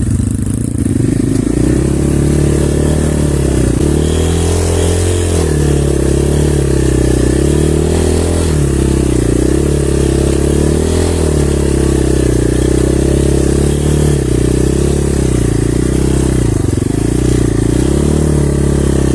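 Small single-cylinder off-road motorcycle engine running, its pitch rising and falling with the throttle.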